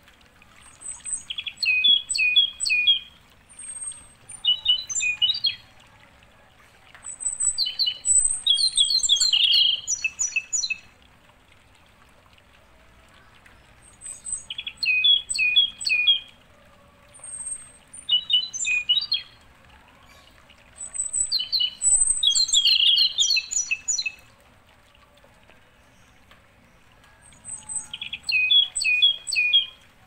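A songbird singing in bouts of rapid, high chirping notes, each phrase lasting two to four seconds with short pauses between, over a faint steady background hiss.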